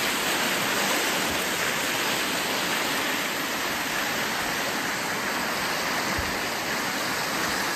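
Shallow river water running over stones, a steady, even rush.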